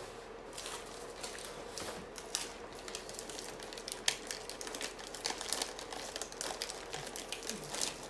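Hands working on mechanical keyboard parts: irregular light clicks and plastic rustling, with one sharper click about four seconds in.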